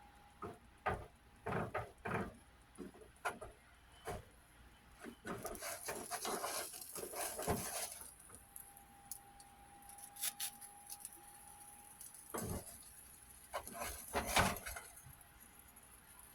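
Kitchen cookware and utensils being handled, with scattered clinks and knocks and a denser stretch of scraping noise about five to eight seconds in.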